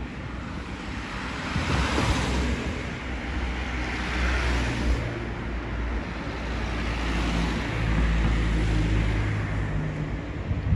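Road traffic: vehicles passing one after another. The passes swell about two and four seconds in, and a low engine rumble grows louder near the end.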